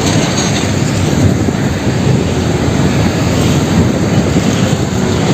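Heavy vehicle sound, a steady loud rough noise with no clear pitch, heaviest in the low end, like a truck engine running.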